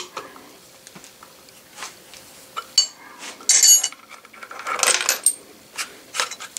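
Metal-on-metal clinks and clatter of a wrench loosening a hold-down nut and a steel clamp being lifted off a milling machine's rotary table, with louder clatters about three and a half seconds in and again near five seconds.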